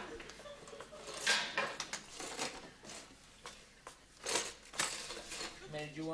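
Loose letters clattering and rattling inside a cardboard box as it is handled and rummaged through, in several separate bursts.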